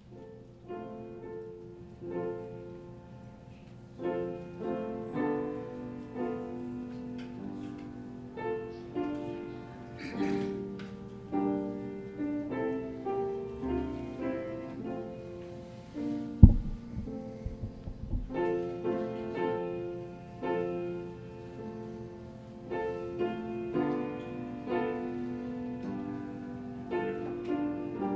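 Piano playing a slow piece, notes and chords struck every second or so. A sharp low thump sounds about halfway through and is the loudest single sound.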